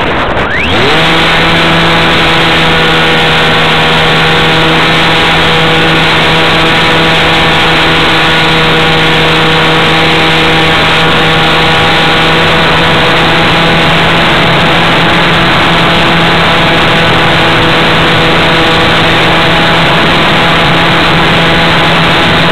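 Motor of a radio-controlled model aircraft heard from its onboard camera, its pitch rising quickly as the throttle opens about a second in, then holding a steady, loud whine while the model climbs.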